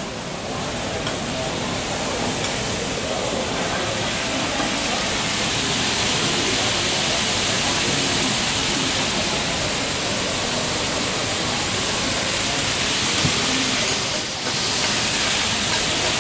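Food sizzling on a hot teppanyaki griddle, a steady hiss with steam rising off the steel plate; it grows a little louder over the first few seconds and dips briefly near the end.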